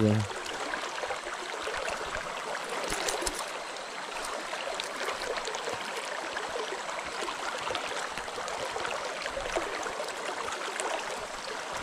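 Steady rush of stream water.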